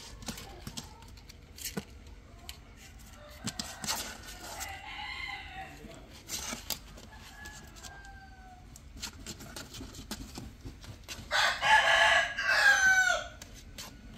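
A rooster crowing loudly near the end, one drawn-out call in two parts. A fainter call comes around the middle, over scattered light clicks and knocks.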